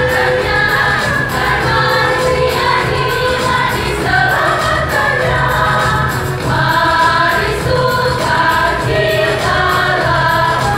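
Choir singing a Christian song, voices holding notes of about a second each without a break.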